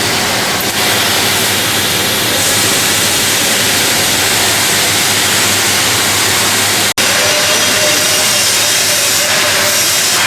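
Bore welding machine at work: a steady hiss over a low hum, broken off briefly about seven seconds in.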